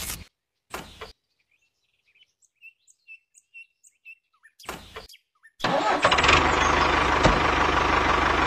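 A few short rustles and faint bird chirps, then a little over halfway through a diesel tractor engine sound starts and runs steadily with a low, even chug.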